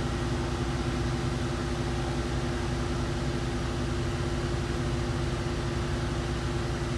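A car engine idling: a steady low hum with a constant drone.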